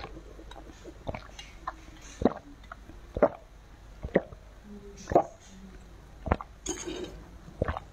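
Drinking through a plastic straw: sharp, wet mouth clicks about once a second as the drink is sucked up and swallowed, and a short hissing slurp near the end.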